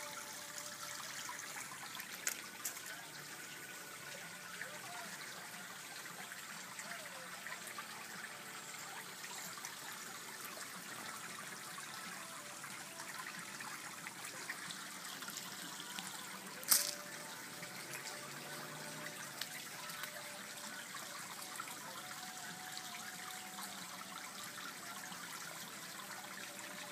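Backyard pond water trickling steadily. There is a sharp click a little past halfway and a fainter one about two seconds in.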